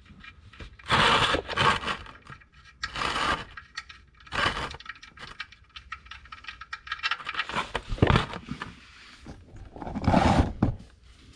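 Hand tools being handled and set down: six or so short bursts of scraping and metallic clinking, with quiet gaps between them.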